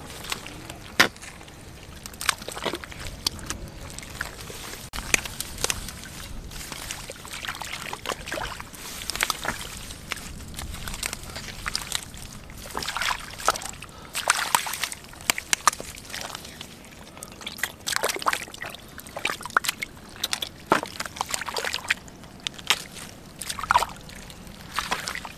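Wet mud squelching and sloshing in short, irregular bursts as bare feet step into it and hands dig through it.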